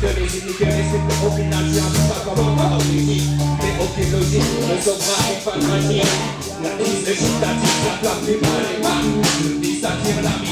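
Live hip hop band performing: a drum kit beat and electric guitar, with vocals rapped into microphones over the top.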